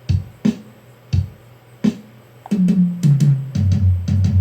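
Sampled drum-kit sounds being tapped out: four separate drum hits, then a run of short low notes stepping down in pitch, the last one held.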